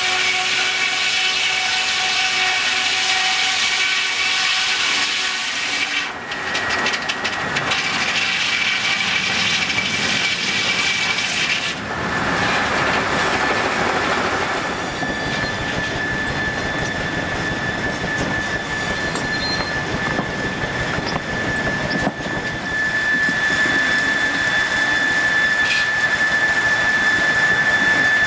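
Steam-powered sawmill machinery running, all driven by a single steam engine: a continuous loud mechanical clatter with steady high whines that shift a couple of times, settling into one high whine for the second half.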